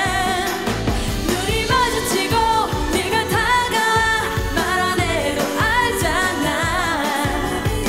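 K-pop song: a singing voice over a pop backing track with a steady beat.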